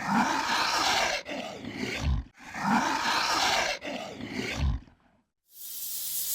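An animal roaring twice, the two calls alike, each ending in a deep rumble.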